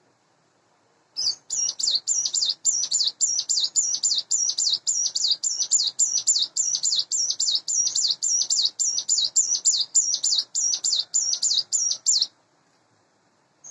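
Ciblek gunung, a prinia, singing a long, fast series of identical high, sweeping notes, about three a second for some eleven seconds, that stops abruptly.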